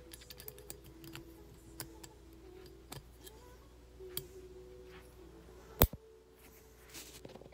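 Small metal clicks and ticks of steel pistol slide parts being handled and fitted by hand, with one sharp, much louder metal click about six seconds in.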